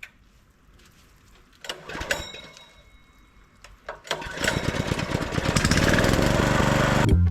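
A pressure washer's motor starting about four seconds in, rising quickly and then running steadily with a fast mechanical pulsing.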